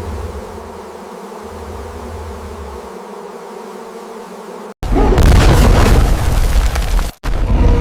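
Steady droning buzz of a bee swarm. About five seconds in it cuts off suddenly into a loud booming, crashing rumble, which breaks off briefly and resumes near the end.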